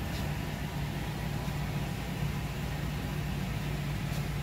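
Steady low machine hum, even throughout, with a couple of faint ticks.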